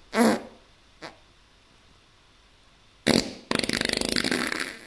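Fart sounds: a short one at the start, then about three seconds in a loud burst followed by a long, rapid sputtering one.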